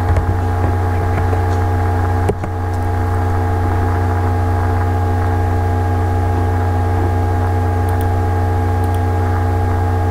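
Steady electrical hum on the recording, a low drone with a row of higher overtones that never changes, with a single sharp click about two seconds in.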